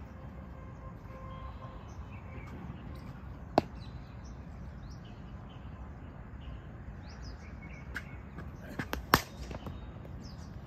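Birds chirping over steady outdoor background noise, with a single sharp knock about a third of the way in. Near the end come a couple of lighter knocks and then a loud crack: a cricket bat striking the ball.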